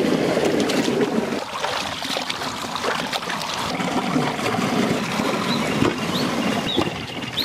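Chicken pieces being washed by hand in a vessel of water, the water sloshing and splashing, busiest in the first second or so.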